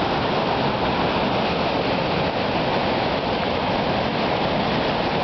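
Heavy rushing water of a waterfall running high and swollen, a steady, loud roar of falling water.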